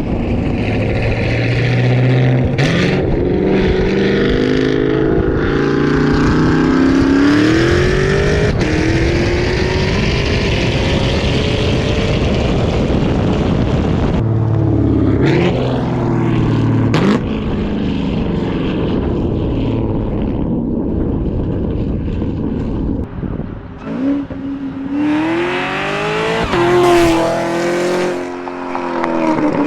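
Camaro ZL1's supercharged 6.2 L LT4 V8 through a modified exhaust, revving up and down: the pitch climbs, drops and climbs again several times, with two sharp cracks from the exhaust.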